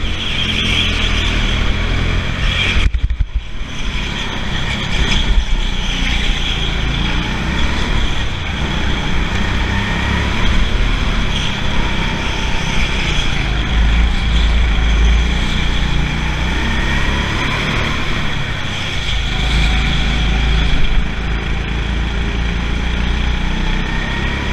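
Rental go-kart engine, heard onboard, running at speed on an indoor track, its pitch rising and falling as the throttle is opened and eased through the corners. The sound dips briefly about three seconds in.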